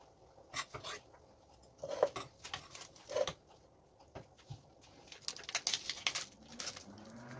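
A few short knife scrapes and knocks on a wooden cutting board, then, about five seconds in, a second of crinkly rustling as the sealed plastic lid is peeled off a food tub.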